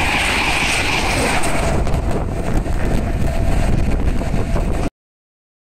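A train passing on a main line: its high rushing hiss dies away about two seconds in, leaving a low rumble with wind buffeting the microphone. The sound then cuts off suddenly about five seconds in.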